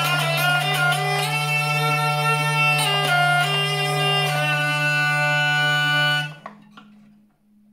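Six-string maple-and-linden hurdy-gurdy played with its wheel cranked: a steady low drone under a melody of changing keyed notes. About six seconds in the wheel stops and the sound cuts off, leaving a faint ringing tone.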